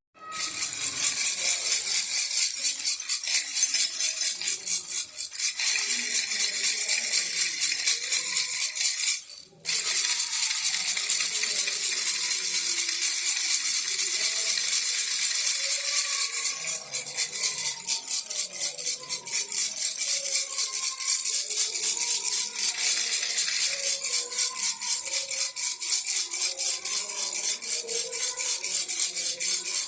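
Baby rattle shaken rapidly and continuously, a dense high-pitched rattling of beads inside, with one brief stop about nine seconds in.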